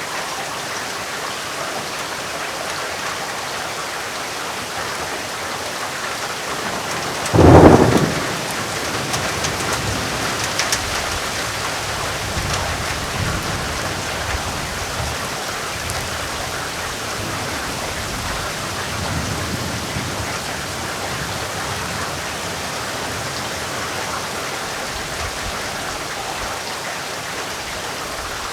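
Heavy rain falling steadily. About seven seconds in comes a sudden loud thunderclap, followed by a low rolling rumble of thunder that fades away over the next ten seconds or so.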